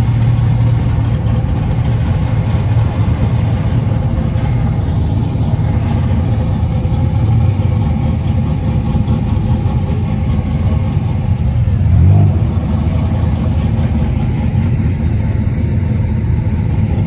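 Car engines running at low speed as cars roll in, a steady low engine sound; one engine swells briefly louder about twelve seconds in.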